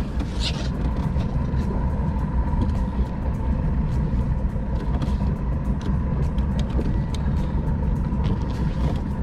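Bass boat's outboard motor running steadily at low speed, a continuous low rumble with a faint steady whine above it.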